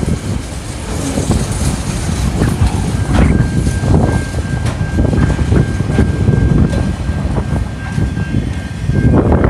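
TasRail freight train's container and empty flat wagons rolling past close by, wheels clattering over the rail joints in a regular rhythm over a low rumble. A thin, steady high-pitched tone comes in about three seconds in.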